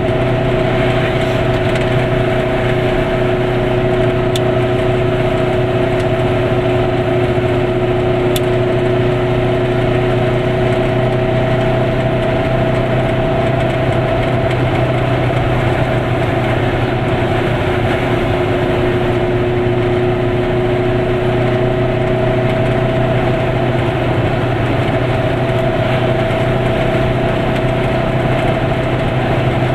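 Goggomobil's air-cooled two-stroke twin engine running at a steady cruising speed, heard from inside the car with road and wind noise. The engine note holds an even pitch throughout.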